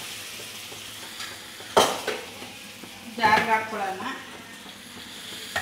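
A steady kitchen hiss with one sharp knock of metal cookware about two seconds in, followed a second later by a brief bit of voice.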